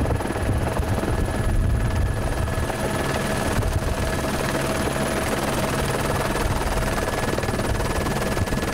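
Helicopter running steadily, heard from on board: rapid rotor chop with a constant turbine whine.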